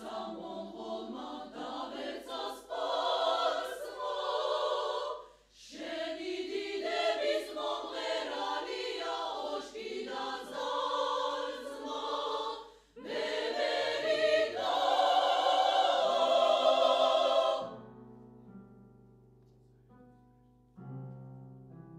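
Women's chamber choir singing in several parts, breaking off briefly twice between phrases. The choir stops about eighteen seconds in and the piano carries on alone softly, with a fresh chord near the end.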